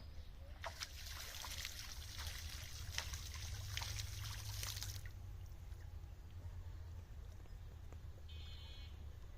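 Water splashing and trickling, a dense crackle of drops, starting about half a second in and stopping abruptly about five seconds in.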